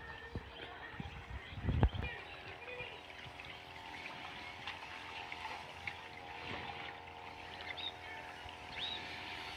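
Steady hum of a battery-powered backpack sprayer's pump motor spraying pesticide, growing a little stronger later, over a steady rustling noise. A few knocks about two seconds in.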